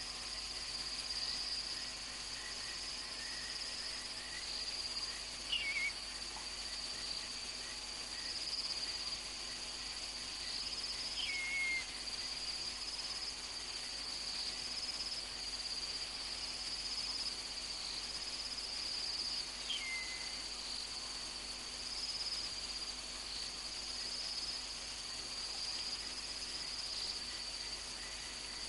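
Night insect chorus: a steady, high, shrill trilling of crickets. Three times, about six, eleven and twenty seconds in, a short call falling in pitch sounds over it.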